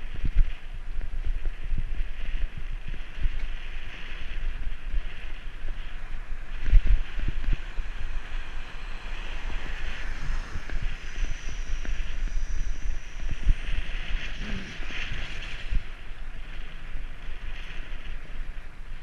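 Riding noise on a moving bicycle: wind buffeting the microphone with a steady rush, over which come frequent low knocks and rattles, the strongest about a third of the way in. A faint high whine comes in briefly around the middle.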